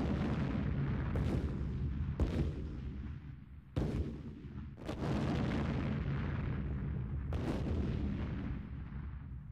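Sound effect of heavy gunfire: five sharp blasts, one to two and a half seconds apart, each trailing off in a long rumble, with the sound fading away near the end.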